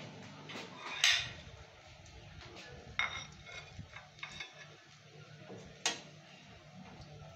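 Steel spatula knocking and scraping against a steel wok a few times, the loudest knock about a second in and others about three and six seconds in, while coconut fritters fry in oil.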